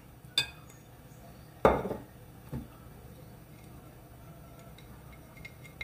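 Kitchen dishes and utensils being handled: a light click, then a single heavy knock about a second and a half in, a lighter knock a second later, and a few faint clinks near the end.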